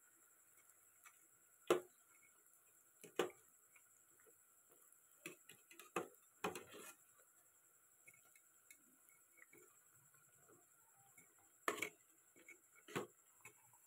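A metal slotted spoon knocking and scraping against the rim and side of an aluminium pot of frying oil, as it turns deep-frying bondas. The sharp clicks come one at a time, irregularly spaced, about eight of them, over a faint background.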